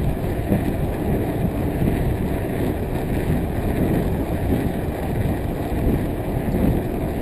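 Steady rushing noise of wind on the microphone mixed with tyre rumble from a bicycle descending fast on an asphalt road.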